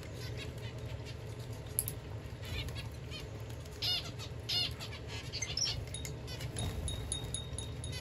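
A small flock of zebra finches and society finches calling, with many short chirps and nasal beeps. The two loudest beeps come close together about halfway through. Light wing flutters sound as the birds flit between perch and table.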